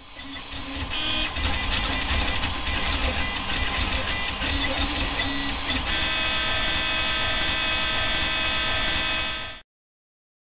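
3D printer running, its stepper motors whining as the print head moves, with a shifting set of steady tones that changes about six seconds in. It fades in at the start and cuts off suddenly near the end.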